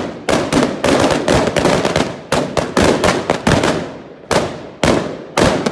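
Firecrackers going off in a bonfire: a rapid, irregular string of sharp bangs, several a second, that thins out after about three and a half seconds into single bangs roughly half a second apart.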